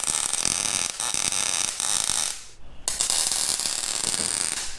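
MIG (wire-feed) welder arc crackling and hissing as tack welds are laid. The arc stops about two seconds in, strikes again half a second later, and cuts off just before the end.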